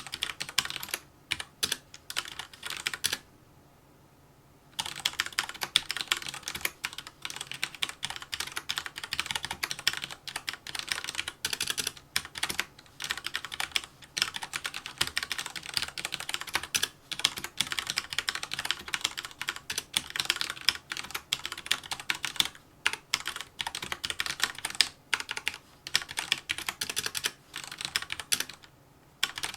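Fast touch-typing on a mechanical keyboard with red linear switches: rapid runs of keystrokes broken by brief pauses, with one longer pause of about a second and a half a few seconds in.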